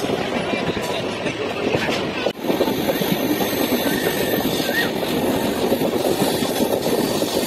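Indian Railways passenger train in motion, heard at the open door of a moving coach: a steady rumble and rattle of wheels on the track. There is a brief drop in the sound about two seconds in.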